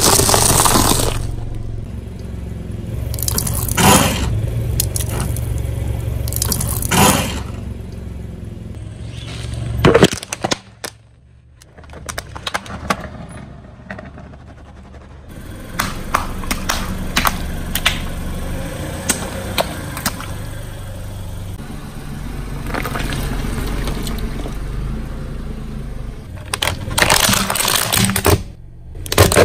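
A car tyre slowly rolling over and crushing a series of objects: caramel popcorn crunching and crackling at the start, a watermelon splitting midway, and a hard plastic toy cracking with loud snaps near the end. The car's engine idles with a low hum underneath.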